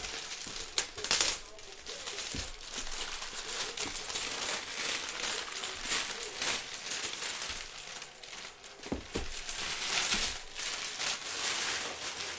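Clear plastic shrink wrap being pulled off a cardboard box and crumpled by hand: loud, dense crinkling with a few sharper snaps.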